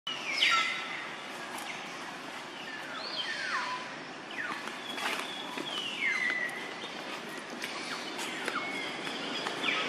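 A series of short, high-pitched animal calls, each sliding down in pitch, coming every second or two over steady outdoor background noise.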